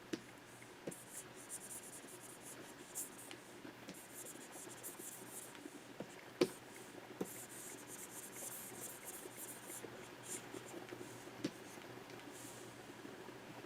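Stylus nib scratching across a Wacom pen display's surface in short runs of strokes, with a few sharp clicks in between, the loudest about six and a half seconds in.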